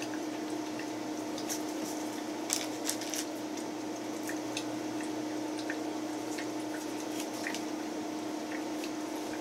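Soft, scattered rustles and light clicks of Havarti cheese slices being peeled off their paper interleaving and laid down, over a steady low hum.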